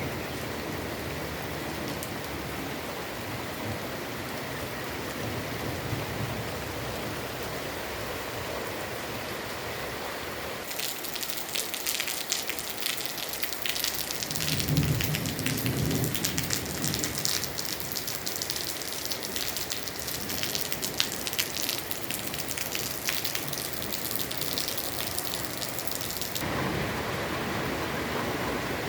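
Heavy rain falling steadily. For about fifteen seconds in the middle, the patter turns denser and crackly as drops hit a surface close by, with a brief low rumble in the midst of it.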